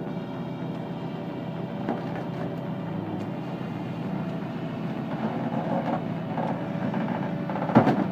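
Engine of a heavy machine running steadily, with a few sharp knocks close together near the end.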